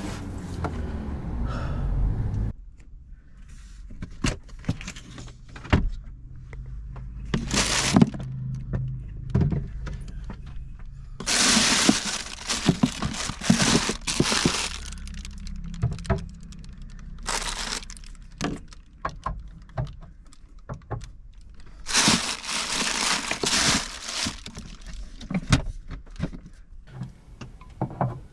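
Things being handled and moved about at close range: a long run of clicks and knocks with two longer stretches of rustling. A low hum in the background stops about two seconds in.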